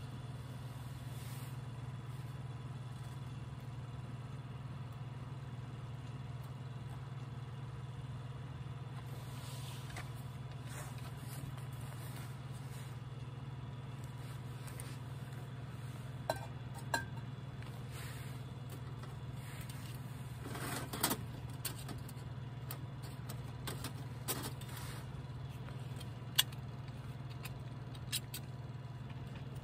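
A steady low rumble, with a few sharp clicks and brief rustles of small items being handled: two clicks about halfway through, then a short rustle and several more clicks toward the end.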